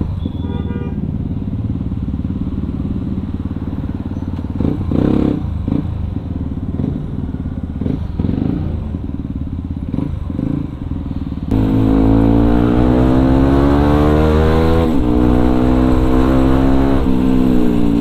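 Yamaha WR155R's single-cylinder engine with an aftermarket racing exhaust running at low speed, creeping through stop-and-go traffic. About two-thirds in it switches abruptly to hard acceleration, the pitch rising, dropping at a gear change, rising again and easing off near the end.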